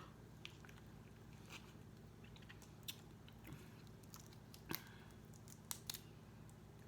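Eating snow crab legs: faint, scattered clicks and small cracks of the shells over a steady low hum, with the sharpest crack a little under five seconds in.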